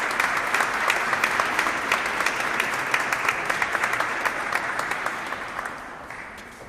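Crowd applauding, many hands clapping in a dense, even patter that gradually fades out over the last two seconds or so.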